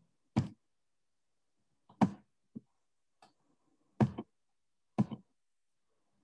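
A series of sharp knocks, about six at uneven intervals, with near silence between them.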